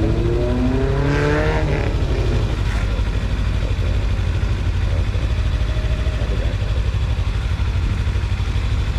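Sportbike engine idling with a steady, pulsing low rumble. In the first two seconds a whine made of several rising tones climbs and then fades out.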